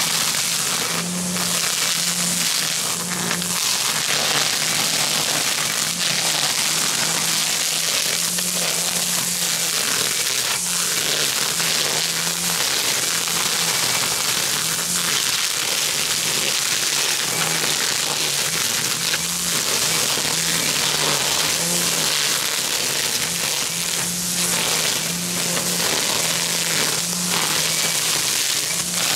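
String trimmer cutting through tall, overgrown grass, a dense, steady crackling hiss of the line shredding stalks, with light background music underneath.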